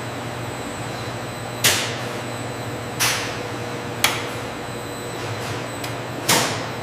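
Steady factory machinery hum with four sharp metallic clanks at uneven intervals, each dying away quickly.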